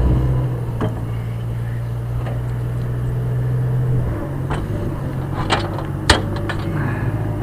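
Engine of a lifting crane running steadily, with a handful of sharp knocks and clanks, the loudest about six seconds in.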